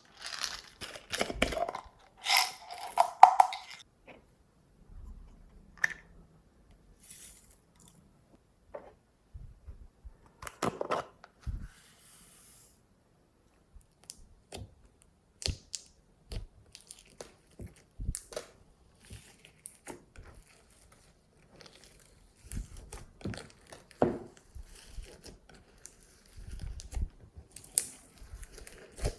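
Hands squishing, stretching and poking glossy slime: irregular sticky crackles, clicks and small pops, densest and loudest in the first few seconds, then scattered with short pauses.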